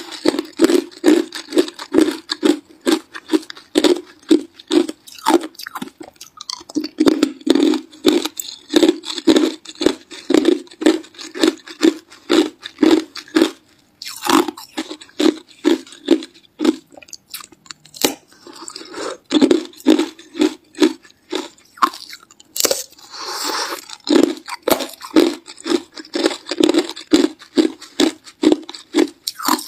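Hard clear ice being crunched between the teeth: quick, repeated crunching chews with a brief pause about halfway through.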